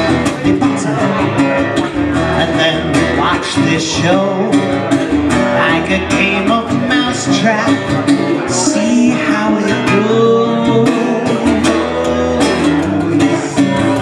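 Modified Alvarez MSB1 acoustic piccolo bass guitar, a four-string acoustic bass, played in a song with a man singing along.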